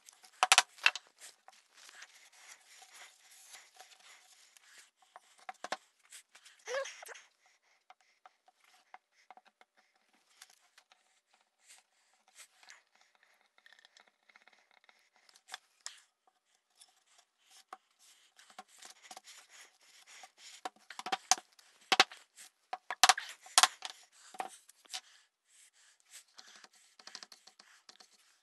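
Small stained wooden drawer parts being handled on a newspaper-covered workbench: scattered clicks, knocks and scrapes, with newspaper rustling. Near the end comes the soft scratch of a brush spreading wood stain.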